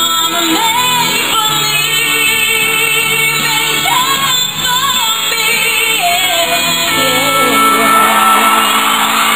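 A woman singing a slow country ballad into a microphone, holding long, bending notes over instrumental accompaniment.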